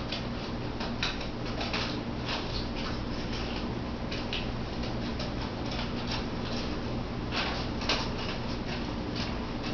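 A blade cutting a circle out of a towel: irregular scratchy rasps and clicks as the fabric is sawn and snipped, over a steady low hum.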